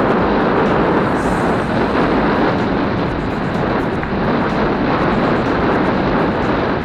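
Wind buffeting the microphone of a helmet-mounted action camera as a mountain bike rolls quickly downhill: a steady, loud rushing noise.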